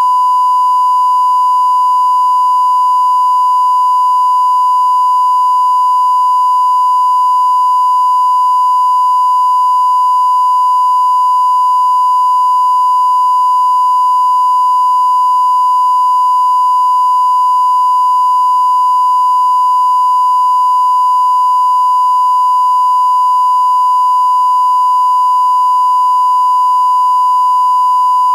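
Broadcast line-up test tone accompanying colour bars: a single steady 1 kHz sine tone held at one pitch and level, unbroken.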